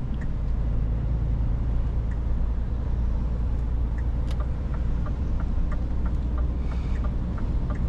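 Scania S450 truck driving, heard from inside the cab: a steady low drone of the engine and road noise, with scattered light ticks and rattles from the cab on a rough, patched road surface.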